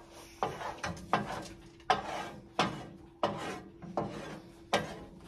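A kitchen spatula scraping and pushing sautéed meat and vegetables across a pan in quick repeated strokes, about one every 0.7 s, each starting sharply and fading briefly. A faint steady hum sits underneath.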